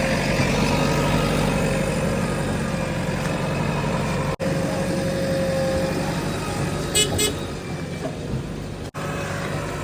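Heavy vehicle engine running steadily, with two short high beeps about seven seconds in. The sound drops out briefly twice.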